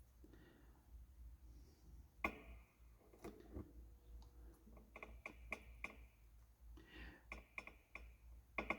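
Faint scattered clicks and light metallic taps from small hand tools and the circuit board being handled during soldering, a few with a short ringing ting, over a steady low hum.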